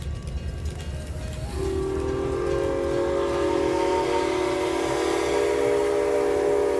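Steam whistle of Grand Trunk 7470, an 0-6-0 steam locomotive, blowing one long chime blast of several notes together. It starts about a second and a half in and holds steady over a low rumble.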